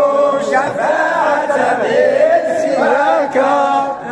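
Men's voices chanting an unaccompanied Arabic devotional invocation of the Prophet in long, drawn-out melodic lines that glide up and down.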